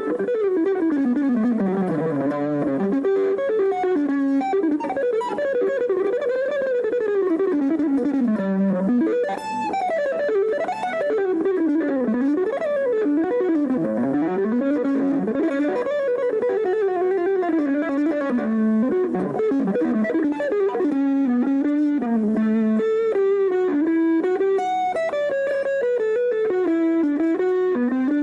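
Solo guitar, most likely electric, playing a continuous stream of fast melodic runs that sweep up and down in pitch. The notes turn more distinct and stepped in the last third.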